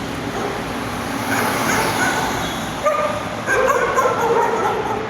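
A dog vocalizing in a string of short pitched calls that bend up and down, starting about a second in, over a steady background hiss.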